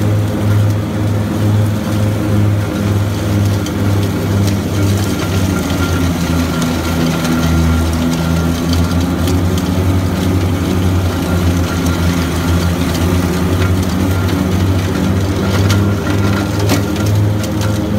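Grasshopper 325D mower's diesel engine running steadily at working speed with the Power Vac collection blower drawing up leaves and grass debris. The engine note dips briefly about halfway through, and a few sharp ticks come near the end.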